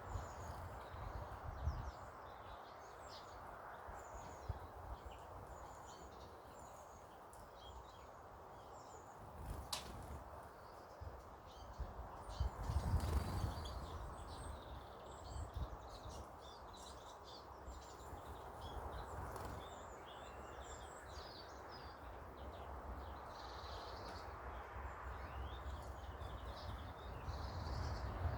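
Small birds chirping and calling at a garden bird feeding spot: many short, scattered high chirps over a steady background hiss, with a brief low rumble about halfway through.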